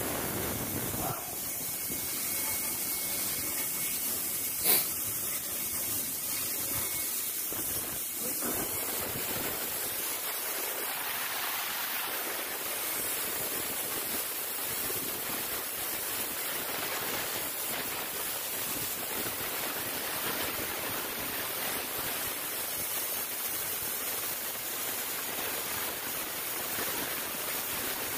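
Compressed-air onion peeling machines hissing steadily as air blasts the skins off the onions, with one short sharp knock about five seconds in.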